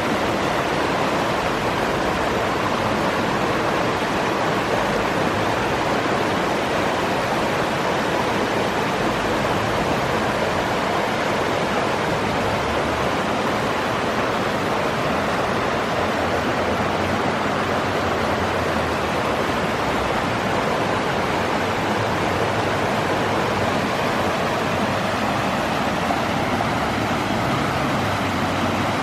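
Creek water rushing in a steady, even stream.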